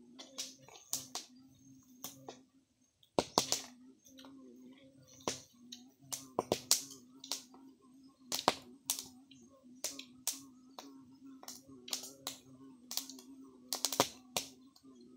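Smoky ground fire of dry leaves and debris crackling, with sharp, irregular snaps and pops and a faint steady low hum underneath.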